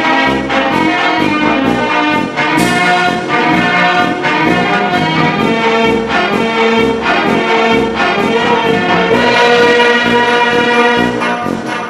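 Background music: an upbeat brass-led orchestral tune with a steady beat.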